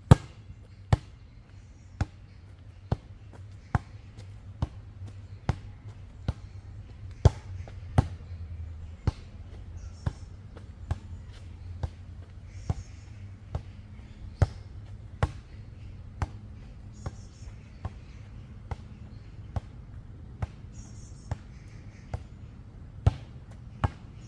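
A basketball-sized ball bounced steadily on a hard dirt path, one sharp bounce a little under every second.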